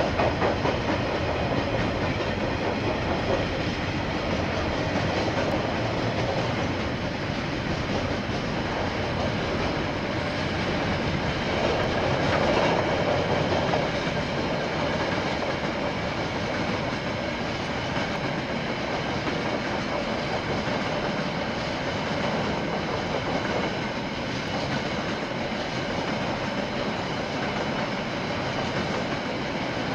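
KiwiRail freight train's wagons rolling past on the rails, a steady noise of wheels and wagons, a little louder about twelve seconds in.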